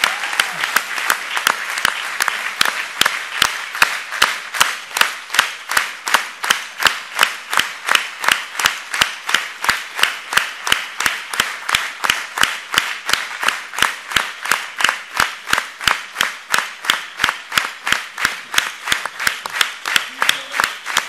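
Large audience applauding, loose at first and settling within a few seconds into clapping in unison, a steady beat of about two and a half claps a second.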